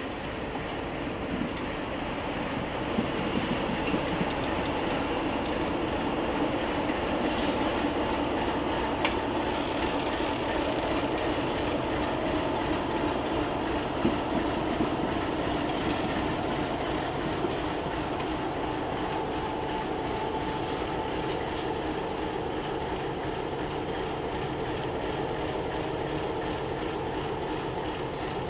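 ALCO FPA and S1 diesel locomotives running close by, their engines making a steady rumble, with a few sharp clanks and a brief high wheel squeal or two as the lashup works through the yard.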